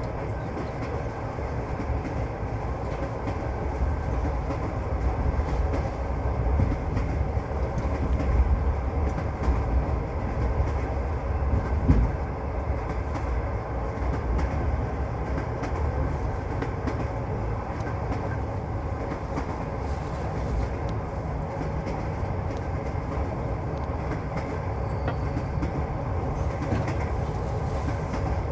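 Passenger train's wheels and carriage running on the rails, heard from inside the carriage: a steady rumble with clatter and a louder knock about twelve seconds in.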